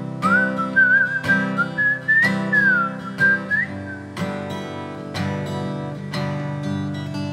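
Acoustic guitar strummed steadily under a whistled melody. The whistling stops about halfway through and the guitar strumming carries on alone.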